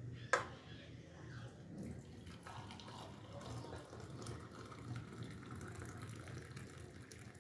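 Milk tea pouring in a steady stream from an aluminium pot into a ceramic mug. There is one sharp clink about a third of a second in.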